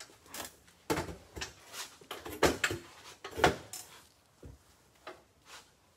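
A run of knocks and thuds from objects being handled and set down, loudest about two and a half and three and a half seconds in, followed by a few fainter ticks.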